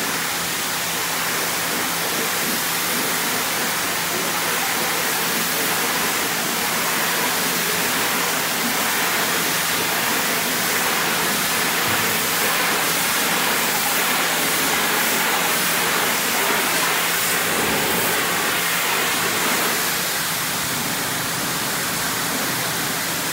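High-pressure wash wand spraying cold rinse water onto a box trailer's side panels: a steady hiss of spray. A faint low hum runs underneath and stops about three-quarters of the way through.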